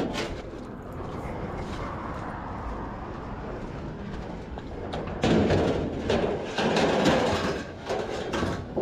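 Thin scrap sheet metal crinkling and clattering as it is handled and pushed into a loaded scrap trailer, loudest in the second half.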